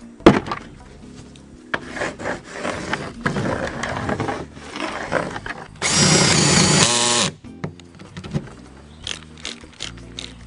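A sharp knock, then scraping and handling noises on a plywood sheet, then a cordless drill with a twist bit running in one steady whining burst of about a second and a half, boring a hole into the plywood.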